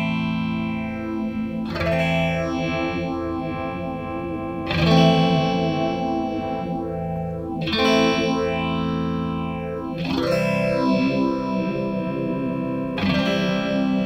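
Electric guitar chords strummed about every three seconds through a Chase Bliss Wombtone mkII analog phaser, each chord ringing on with the phaser's sweep swirling through it. The pedal's ramp is modulating the phaser's rate, mix and depth together, carrying the sound between vibrato and chorus-like phasing as the rate speeds up.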